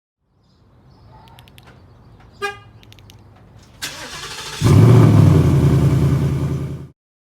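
2019 Ford Mustang GT's 5.0 L V8 being started: a short beep, a brief crank, then the engine fires about four and a half seconds in and runs loudly with a deep low note before the sound cuts off abruptly.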